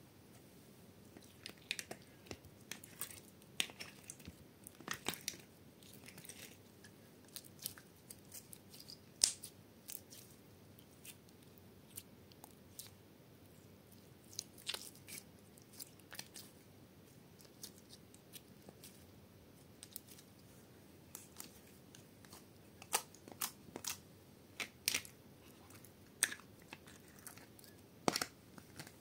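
Clear slime with small coloured cubes mixed in, squeezed and stretched by hand, giving irregular sticky clicks and pops over a faint hiss. The pops come thicker near the end.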